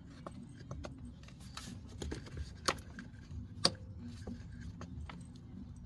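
Hands fitting a vapor canister purge valve and its mounting piece into place: scattered small clicks and rubbing, with two sharper clicks near the middle.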